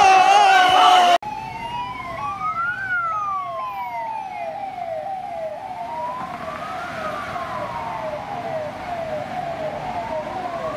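Ambulance siren with two tones at once: a fast falling yelp repeating about three times a second over a slow wail that rises and falls every four seconds or so. Before it, a shouting voice cuts off suddenly about a second in.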